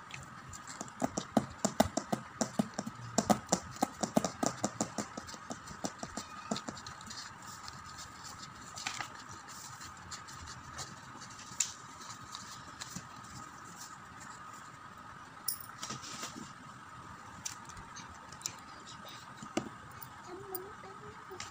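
Craft paper and a pen being handled: a quick run of sharp clicks and taps for several seconds, then only occasional taps and rustles. A faint steady high hum runs underneath.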